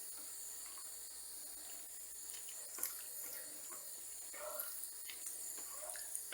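Boiled noodles being stirred into a minced-meat gravy in a pan with a utensil: soft, wet, irregular squelches with a few light taps and scrapes, over a faint steady hiss.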